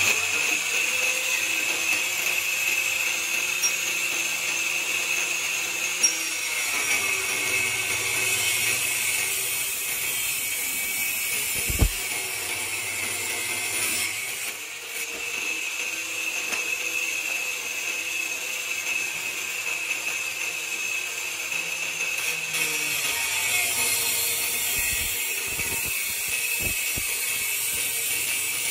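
Angle grinder with an abrasive cut-off disc, mounted on a homemade sliding cut-off arm, running at full speed and cutting through metal bar with a steady high whine and grinding. One sharp knock about twelve seconds in.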